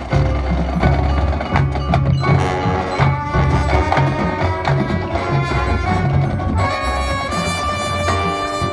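High school marching band playing its field show: pulsing low bass notes under struck percussion, with fuller held chords coming in about two-thirds of the way through.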